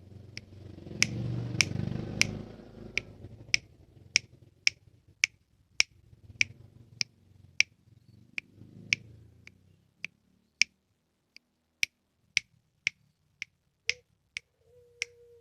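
Sharp, even clicks repeating at a steady pace of about two a second. Near the end a collared dove (puter pelung) begins a low coo.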